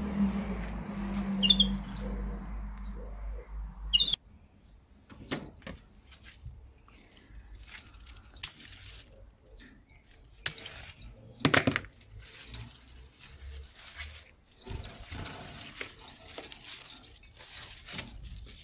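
Scissors snipping mint stems from a potted plant, with leaves rustling: scattered short, sharp snips and rustles once the first few seconds have passed. Before that, a steady low hum with two short high chirps stops abruptly about four seconds in.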